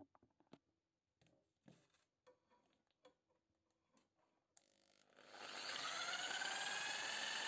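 A few faint clicks and knocks, then about five seconds in an electric power tool starts up, its motor winding up to a steady high whine.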